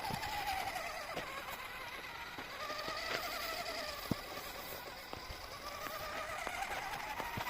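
Electric motor and gearbox of a 1/10-scale RC rock crawler whining, the pitch wavering and rising and falling as the throttle and load change, with a few sharp clicks.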